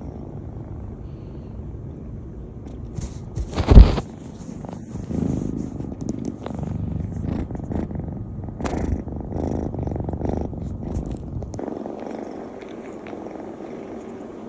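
Ragdoll kitten purring close to the microphone, a steady low rumble that thins out about eleven seconds in. A loud thump about four seconds in, with a smaller knock near nine seconds.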